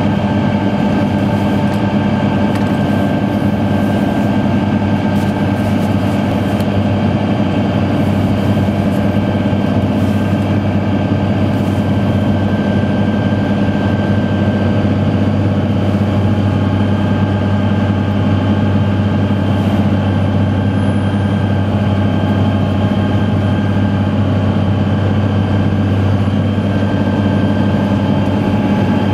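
Fendt 939 Vario tractor's six-cylinder diesel engine running steadily under load while it drives a Meri-Crusher, heard inside the cab: an even, heavy drone with a steady high whine over it.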